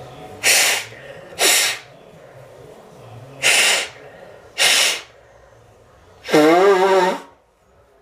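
A person blowing their nose hard into tissues: four short, sharp blows, then a longer blow with a buzzing, wavering pitch about six seconds in.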